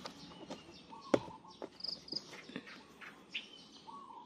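Birds chirping on and off with short calls and quick trills. A sharp click comes a little over a second in, followed by a few lighter clicks and taps.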